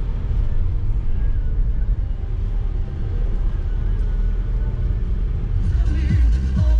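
Steady low road and engine rumble of a car driving at highway speed, heard from inside the cabin. Near the end, pop music with a regular beat starts on the car radio.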